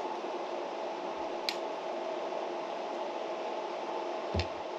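Steady machine hum with a faint hiss, as of a room fan, and two light clicks of a spoon against a lacquered bowl, about a second and a half in and again near the end.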